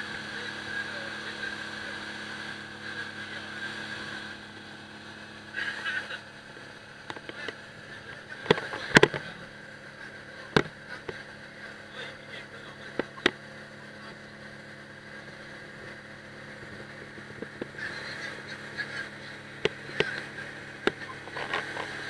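Boat engine running steadily with a low, even hum, with a few sharp knocks about halfway through.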